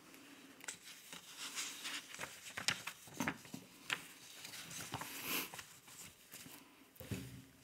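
Loose sheets of printed paper being shuffled and turned on a table: a run of soft, irregular rustles and light paper taps.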